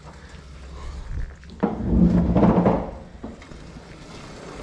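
Flatbed storage cart rolling on a concrete floor under a load, with a sudden jolt about a second and a half in followed by about a second of loud rattling rumble, then rolling more quietly.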